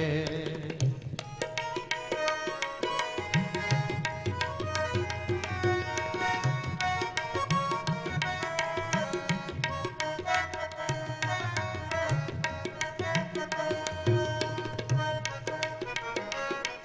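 Instrumental passage of Sikh shabad kirtan: two Nagi harmoniums play the melody in sustained reed chords, while a tabla keeps a brisk, steady rhythm of sharp strokes and bass thuds.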